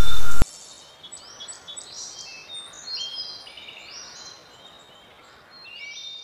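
Loud music cuts off sharply just after the start, leaving faint birds chirping: scattered short high calls that sweep up and down.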